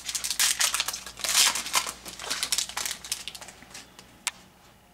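Baseball card pack wrapper crinkling as it is torn open and handled, dense for about three seconds and then thinning out, with one sharp click near the end.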